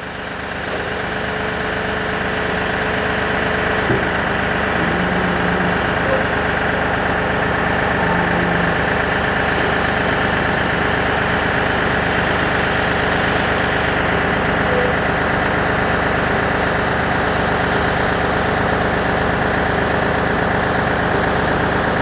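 Kioti DK-series tractor's diesel engine running steadily, getting louder over the first couple of seconds, while the backhoe's hydraulics lower the outriggers and subframe to the ground. A single click about four seconds in.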